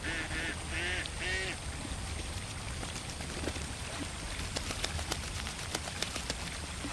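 Duck quacking in a quick run of about four calls in the first second and a half. After that comes a patter of small water splashes and drips as sharp little clicks, over a low steady rumble.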